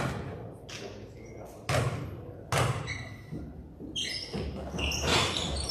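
Basketball bouncing on the gym floor, three separate bounces in the first three seconds, each echoing around the large hall. Then a run of sneaker squeaks on the court near the end.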